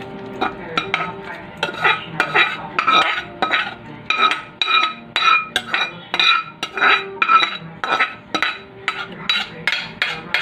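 A metal spoon clinking and scraping against a stainless steel bowl as chicken curry is scooped in and turned, about two ringing clinks a second.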